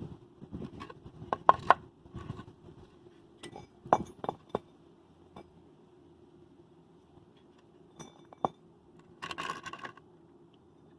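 Small metal parts clinking and tapping against each other as they are handled, in scattered single knocks with a short ring, and a brief rattle near the end.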